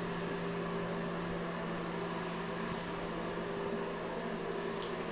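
Steady hum of a ventilation fan running, with a constant low tone.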